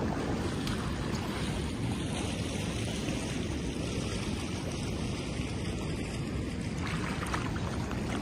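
Steady rush of fast-flowing river water, with wind buffeting the microphone.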